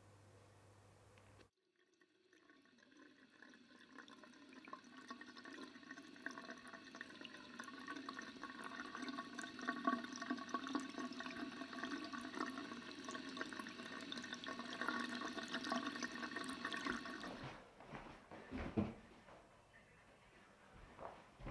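Water running from a tap, building up over several seconds and stopping abruptly near the end; a few soft thumps follow.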